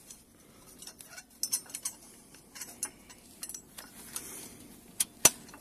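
Scattered small metallic clicks and clinks as steel crane fittings are handled with a gloved hand, with one sharp click a little after five seconds in.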